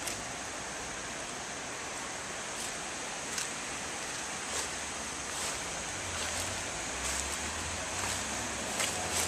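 Steady rushing of water at a river weir, a constant even hiss. From about six seconds in, low wind buffets on the microphone come and go, with a few faint clicks.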